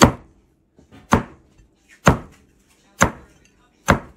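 Large kitchen knife chopping down through crackling-skinned roast pork belly onto a wooden cutting board: five sharp chops, about one a second.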